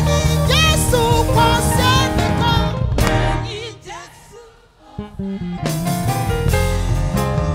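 Live gospel praise song: a woman's lead vocal over a band with drum kit. About three and a half seconds in the music drops almost to nothing for a moment, then the band comes back in with a sharp hit.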